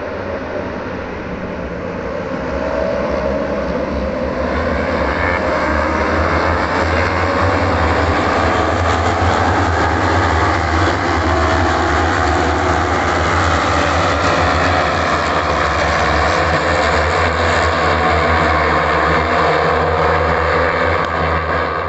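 A pack of superbikes racing past together, many engines at high revs blending into one continuous howl. It swells over the first few seconds as the pack comes closer, then holds loud and steady.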